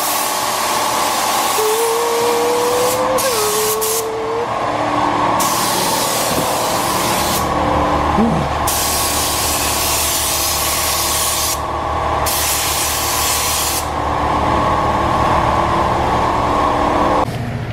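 Compressed-air paint spray gun hissing in bursts of one to three seconds as the trigger is pulled and released, spraying paint onto a boat hull. Under it runs a steady machine hum that stops shortly before the end.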